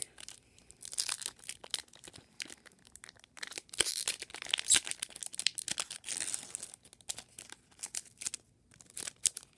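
Foil Pokémon booster pack being torn open by hand: irregular crackling tears and crinkling of the wrapper, which goes briefly quieter and crinkles again near the end as the cards are pulled out.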